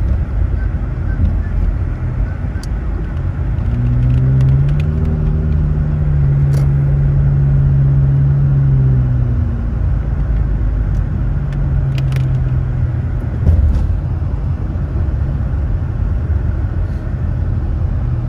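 A car's engine and tyre noise on a wet road, heard from inside the cabin while driving slowly. The engine note rises as the car speeds up about four seconds in, holds, then eases off around ten seconds in. Scattered light ticks sound over it.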